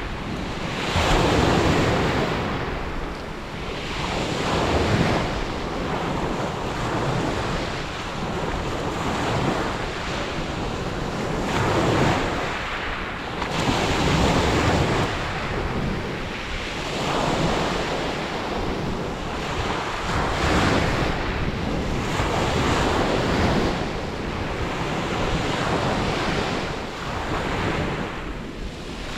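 Mediterranean surf breaking and washing up on a beach, the rush of water swelling and fading every few seconds, with wind on the microphone.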